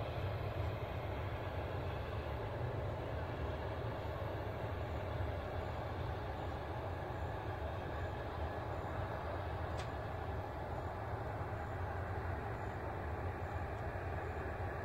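Airport ambience: a steady, even low rumble that holds at one level throughout.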